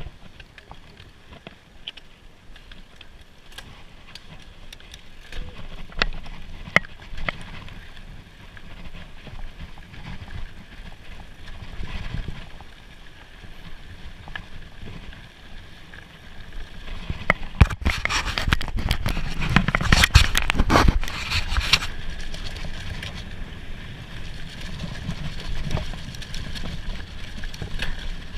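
Mountain bike riding a dirt trail: tyre noise with frequent knocks and rattles from the bike over bumps, turning into a louder stretch of dense clattering about two-thirds of the way through.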